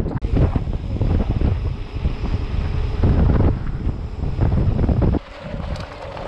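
Wind buffeting an action camera's microphone as a mountain bike rides at speed, a loud low rumble that drops suddenly to a quieter level about five seconds in.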